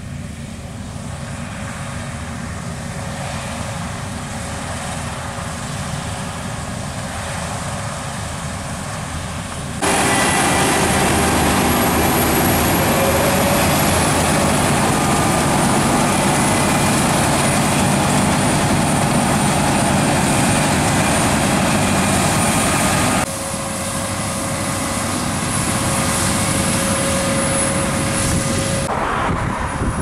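Claas Lexion 7500 Terra-Trac combine harvester running while harvesting barley: a steady engine and machinery drone with a thin high whine over it. It jumps abruptly louder about ten seconds in and drops back after about twenty-three seconds.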